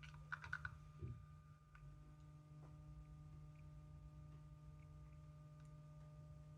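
Small plastic toy parts being handled: a quick run of light clicks, a soft knock about a second in, then only a faint steady hum with a few tiny ticks.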